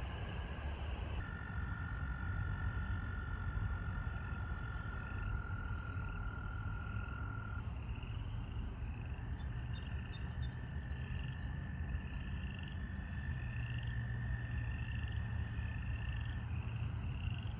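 A chorus of marsh frogs calling: long, steady high trilling tones, joined about halfway through by a regular series of short high peeps, a little over one a second.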